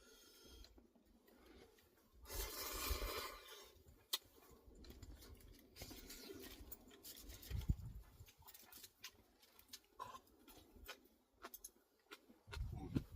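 Faint rustling and scattered small clicks, with a louder rustle lasting about a second and a half about two seconds in and a low thump near the end.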